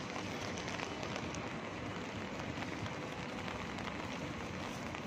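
Steady rainfall on a city street, with single drops ticking here and there.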